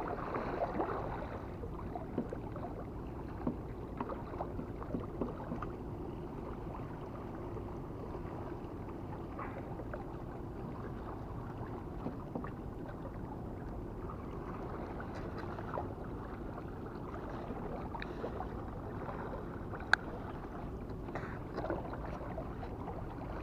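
Waves washing steadily against a rocky shore, a continuous wash of water. A few faint clicks and taps are heard over it, with one sharper click about twenty seconds in.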